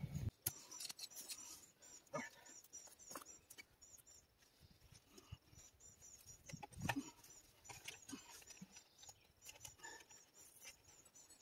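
Almost silent: faint knocks and scrapes of black poly well pipe being handled and fed down a drilled well, the clearest about two and seven seconds in, over faint repeated high chirping.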